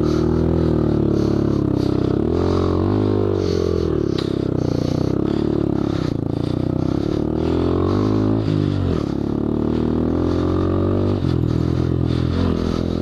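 Honda Grom's small single-cylinder engine pulling through loose sand, its pitch rising and falling with the throttle and dipping and climbing back twice, about two seconds in and near nine seconds.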